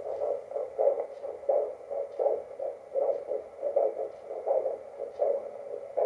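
Fetal Doppler playing a heartbeat through its speaker as a train of whooshing pulses, about one and a half a second. That slow pulse is the mother's own heartbeat, with the baby's faster heartbeat also picked up.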